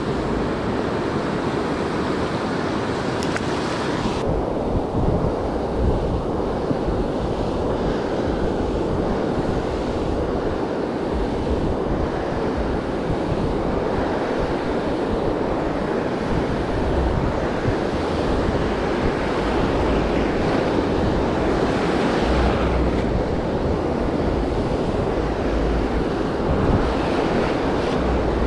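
Ocean surf rushing steadily onto the beach, with wind rumbling on the microphone.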